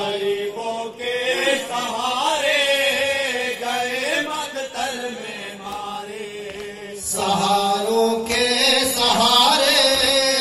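Men reciting a noha, a Shia lament, in unison through microphones and a PA, with voices only and no instruments, in a slow, chant-like melody.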